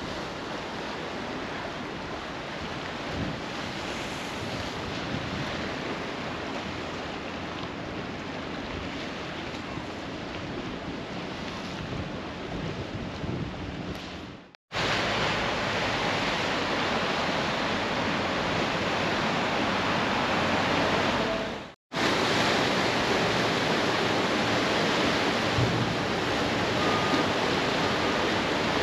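Steady outdoor rush of sea surf and wind, with wind buffeting the microphone. The sound cuts out for a moment twice, about halfway and about three-quarters through, and is a little louder after the first break.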